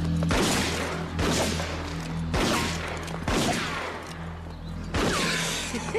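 Revolver fired five times, each shot about a second apart, into a wooden sign. The last shot is followed by a short falling whine.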